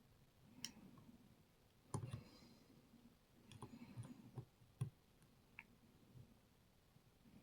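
Faint, irregular clicks and ticks of a lock pick working the pins inside a Rav Bariach KeylocX pin-tumbler cylinder, the sharpest about two seconds in.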